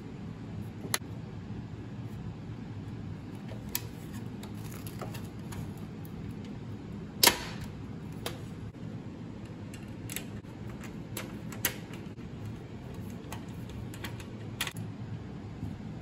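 Scattered clicks and light knocks of an ASUS GTX 1650 Super graphics card being pressed into a PCIe slot and its bracket in a PC case. The loudest is a single sharp click about seven seconds in, and a steady low hum runs underneath.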